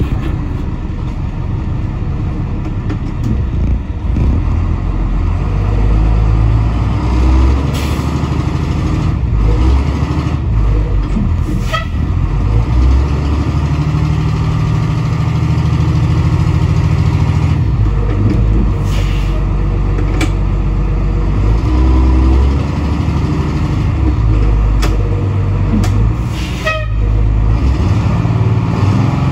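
International DT360 inline-six diesel in a school bus, revving up and easing off several times under load as the bus tries to pull out of a muddy tire rut, the drive tires spinning without moving it. A few sharp clicks and knocks come through over the engine.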